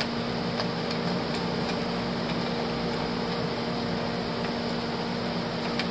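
Steady mechanical hum over a steady hiss, like a fan or air-conditioning unit running, with a few faint clicks as the lens's tripod collar is handled.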